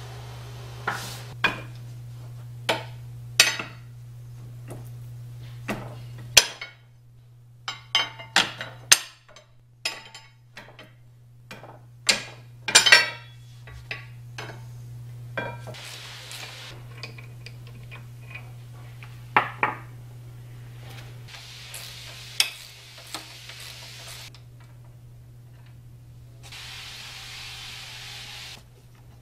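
Steel hand tools (sockets, wrench and ratchet) clinking and clanking against the cast-iron parts of a 1920s Chandler & Price platen press while it is unbolted: irregular sharp metal clinks, the loudest cluster about twelve to thirteen seconds in. Later there are a few seconds of steady hiss, the longest near the end.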